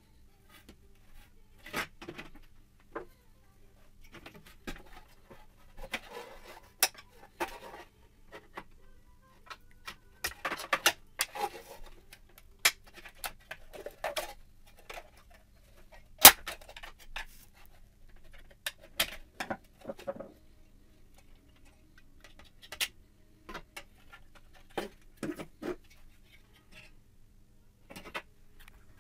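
Hard plastic parts of a BMW E46 ZKW headlight clicking, knocking and scraping as they are handled and pried apart with a screwdriver: scattered short clicks and clatters with pauses between them, the sharpest click about sixteen seconds in.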